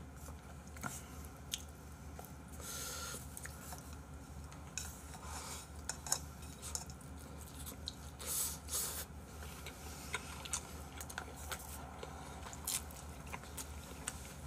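Quiet eating at a table: chopsticks clicking against bowls, chewing, and slurping of noodles about eight seconds in.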